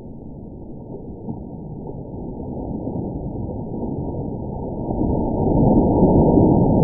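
Bucket of ice water pouring and splashing over a person, heard as a dull, muffled rushing with no high end, growing louder toward the end.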